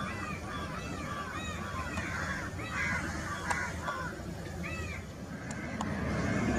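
Crows cawing repeatedly, a call about every half second, over the low rumble of a Boeing 737's jet engines on its take-off roll. The engine rumble swells near the end as the jet comes nearer and lifts off.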